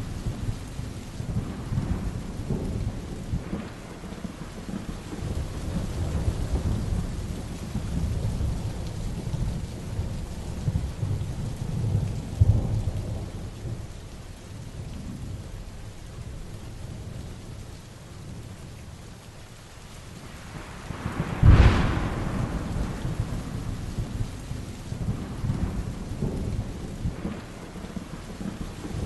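Heavy rain falling steadily under continual rolling thunder. About three-quarters of the way through a sharp, close thunderclap cracks out, the loudest moment, and rumbles away.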